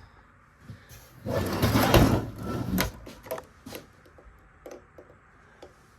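Handling noise from the diesel heater unit and its packaging: a loud rustling, scraping burst lasting over a second, about a second in, then a few light knocks and clicks.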